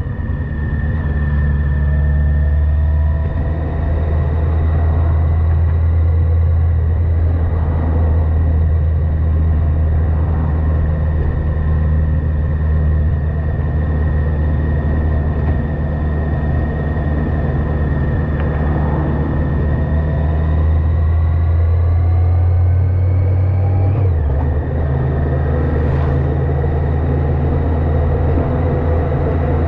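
Yamaha FJR1300AE's inline-four engine droning steadily under way, with a whine that slowly rises in pitch and then drops suddenly near the end.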